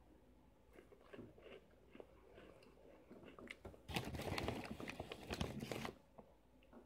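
Faint crunching as corn-and-potato snack fries are chewed, then about four seconds in a loud rustle of the plastic snack bag lasting about two seconds as a hand digs into it.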